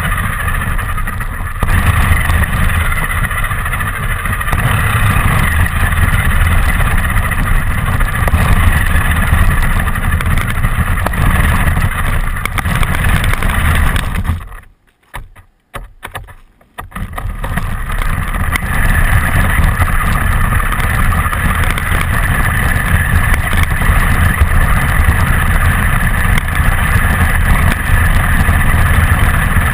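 Radio-controlled car driving, its motor and tyre noise heard loud and close from a GoPro mounted on the car. The noise drops away almost completely for about two seconds around the middle, then comes back.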